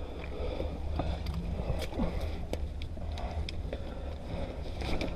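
Paintball magazines being handled during a reload: scattered sharp clicks and knocks over a steady low rumble on the head-camera microphone.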